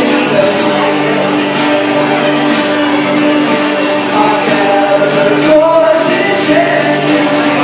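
Two young male voices singing together over two acoustic guitars strummed in a steady rhythm.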